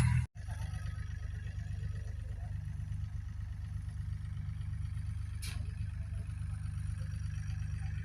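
Farm harvest machinery engine running steadily with a low rumble. There is a short hiss about five seconds in.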